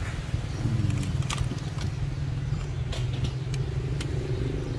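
A steady low rumble like a running motor, with several light sharp clicks.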